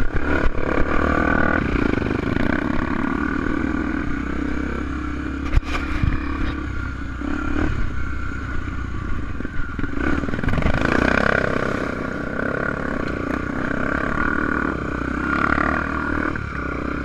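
Honda XR250 Tornado enduro motorcycle's single-cylinder four-stroke engine running while ridden off-road, the revs rising and falling, with clattering and a sharp knock about five seconds in.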